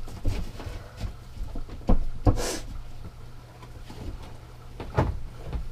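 Handling noises as a fabric slipcover is worked onto a chair: scattered knocks and taps, the sharpest about two seconds in and near the end, and a brief rustle of fabric about two and a half seconds in, over a steady low hum.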